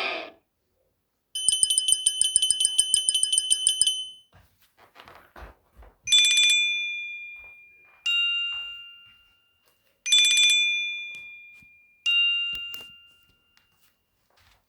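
Nokia C5-03 ringtone playing: a fast pulsing electronic trill for a few seconds. Then a two-tone chime rings four times, two seconds apart, alternating between a higher and a lower note, each note dying away.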